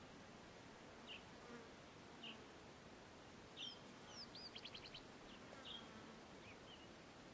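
Faint wild bushland ambience: small birds give short high chirps every second or so, with a quick run of about five notes about halfway through, and a fly or bee buzzes past twice.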